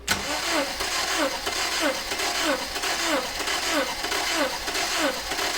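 Subaru Outback's flat-four engine cranked over by its starter motor, with the spark plugs out, for a compression test on cylinder 4. It cranks in a steady rhythm of about eight pulses, roughly one and a half a second, starting abruptly and stopping near the end.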